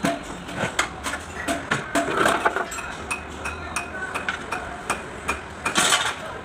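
Metal parts and tools clinking and knocking in a string of irregular taps, with a few louder strikes about two seconds in and near the end.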